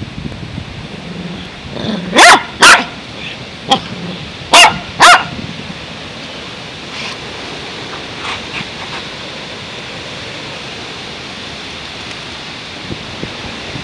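Small black-and-tan dachshund barking: two quick pairs of loud, sharp barks about two seconds apart, with a single shorter bark between them, then a few much fainter ones.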